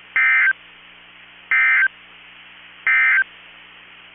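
NOAA Weather Radio SAME digital data tones: three identical short warbling bursts, about a second and a half apart, over a steady radio hiss and hum. Their shortness and their place right after the end of the watch statement fit the end-of-message code that closes an alert broadcast.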